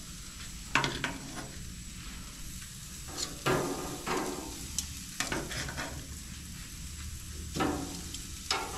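Zucchini spears sizzling as they are laid one at a time with metal tongs onto the hot grates of a gas grill. Each landing sets off a sudden burst of sizzle that dies away quickly, about five times.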